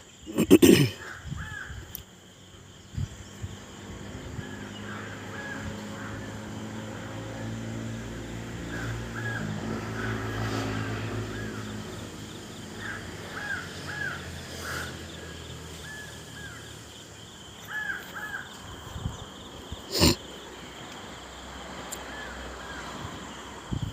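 Crows cawing in short calls of two or three at a time, over a steady high trill of insects. A low hum swells and fades around the middle, and there are two sharp knocks, one at the start and one near the end.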